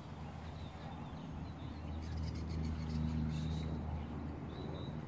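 A low engine hum that swells to its loudest about halfway through and then fades, with a few short bird chirps over it.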